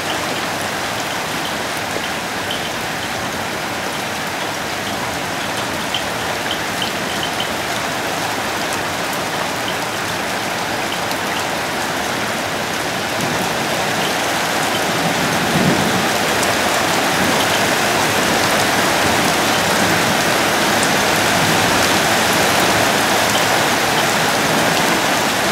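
Torrential downpour mixed with hail pelting tiled pavement: a dense, steady hiss scattered with sharp little ticks, growing heavier about halfway through.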